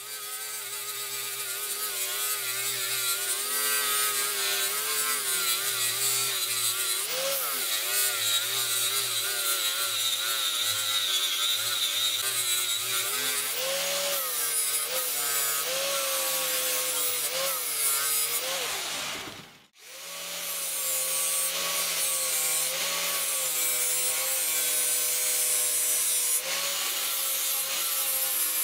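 Angle grinder with a sanding disc grinding and polishing the rusty steel head of an antique axe. The motor whine wavers in pitch as the load changes, over a steady grinding hiss. The sound cuts out briefly about two-thirds of the way through and then starts again.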